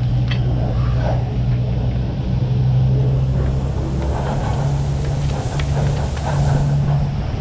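Leitner detachable six-seat chairlift running through its bottom station: a loud, steady low machine hum from the station drive and conveyor tyres carrying the chair out, wavering in pulses over the last few seconds.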